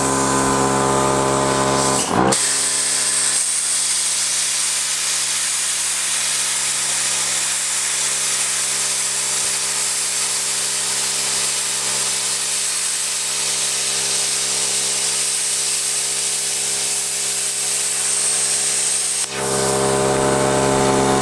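Rented plasma cutter running after being switched on: a steady hiss of air with an electrical hum. The hum drops out after a short sweep about two seconds in and comes back near the end.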